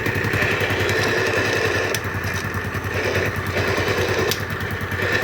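110cc motorcycle engine idling, with a steady whine over the exhaust pulses and a couple of short clicks, with the gear lever pressed. This is the noise that comes with shifting, which the mechanic is sure is a worn bearing (a 6000) behind the clutch cover.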